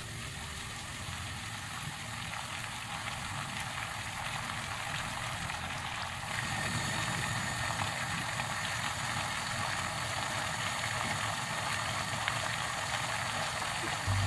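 Steady rushing hiss of a pot of water heating on a stove burner and starting to bubble, a little louder about six seconds in.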